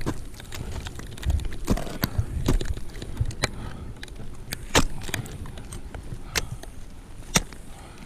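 Ice tool picks and crampon points striking into waterfall ice: sharp, irregular impacts about a second apart, over a low rumble.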